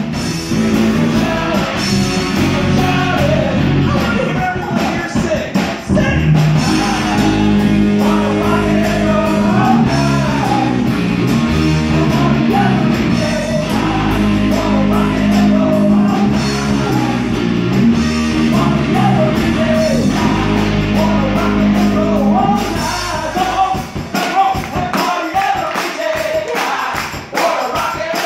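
Live rock band playing with a lead singer, heard from a table across the room. The low bass notes stop about 23 seconds in, leaving the singing over lighter backing.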